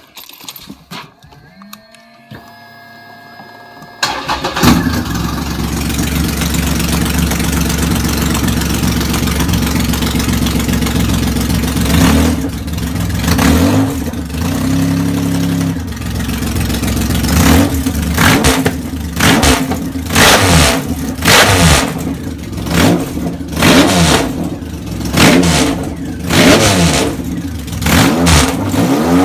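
Triumph Rocket III Roadster's inline three-cylinder engine through straight pipes: cranked and firing about four seconds in, then running at a steady idle. From about twelve seconds in, it is revved in repeated throttle blips that come closer together toward the end.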